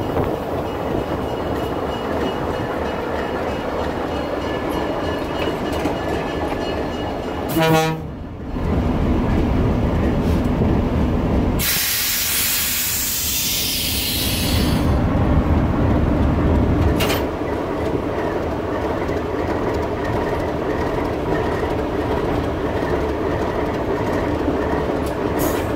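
Alco RS-3 locomotive's V12 diesel engine running and its wheels rolling on the rails, heard from inside the cab. A brief tone sounds about a third of the way in, and a loud hiss rushes in about halfway through for roughly three seconds.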